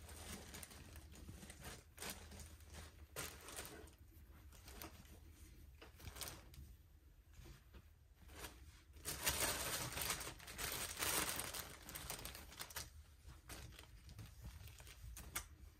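Rustling and crinkling of a fleece sweatshirt being handled, shaken out and smoothed flat, in irregular bursts that are loudest for a few seconds past the middle.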